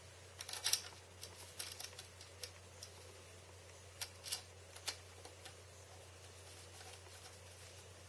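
A small hand screwdriver driving a screw into a 2.5-inch solid state drive through a plastic quick-release drive bay rail: scattered light clicks and ticks in short irregular clusters over a faint steady hum.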